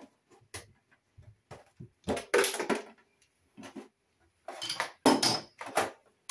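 Metal tools and faucet parts handled on a stainless steel sink: irregular clinks, knocks and scrapes, loudest about two seconds in and again around five seconds in.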